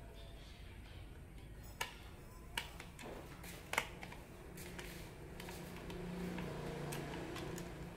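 A few sharp clicks and taps from handling a screwdriver and a solar lamp's LED board, three of them in the first half, then a faint low hum that swells and fades in the second half.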